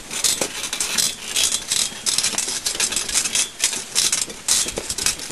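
Pony-drawn wheelchair carriage rattling and jolting over a rough, leaf-strewn woodland track: a dense, irregular run of clicks and knocks.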